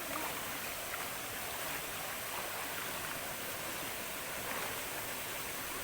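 Steady rushing of the Lau Lutih waterfall and its stream, an even water noise with no breaks.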